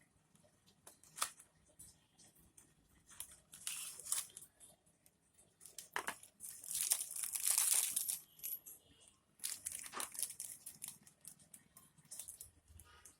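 Packaging being handled, crinkled and torn open in irregular bursts, with one longer, louder stretch of tearing and crinkling about halfway through.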